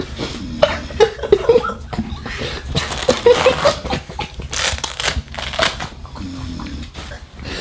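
Rustling and handling noises of fabric and padding being moved about, in irregular scrapes and rubs that are busiest in the middle. A few brief hushed voice sounds come in among them.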